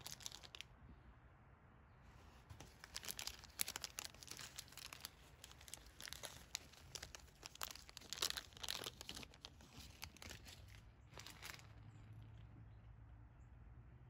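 Clear plastic bag crinkling and crackling as hands unwrap a metal bottle-stopper fitting from it; the crinkling stops near the end, over a low steady hum.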